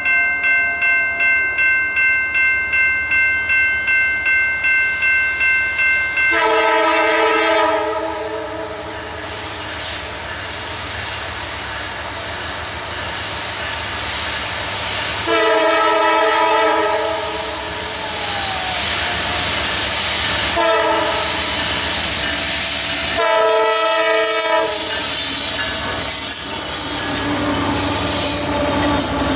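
A bell rings about twice a second for the first six seconds. Then a freight locomotive's chime horn blows the grade-crossing signal, long, long, short, long, as the train approaches. Near the end the locomotives and rail cars rumble and clatter past close by.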